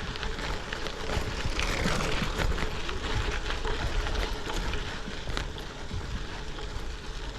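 Gravel bike rolling over a rough gravel road: tyres crunching on loose stones, with frequent small knocks and rattles from the bike over the rocks.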